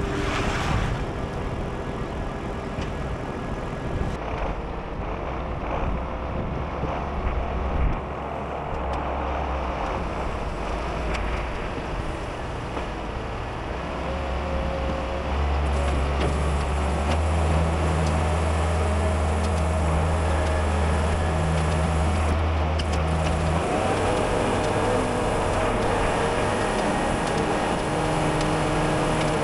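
Tractor engine running with a TMR feed mixer wagon turning, a steady mechanical drone while mixing and feeding out hay ration. The load changes several times, with a deeper, heavier drone from about 16 to 24 seconds in.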